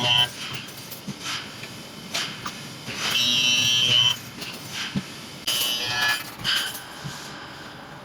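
Electro-forged steel grating welding machine running: short hissing bursts and clanks, with a high-pitched whine lasting about a second, about three seconds in.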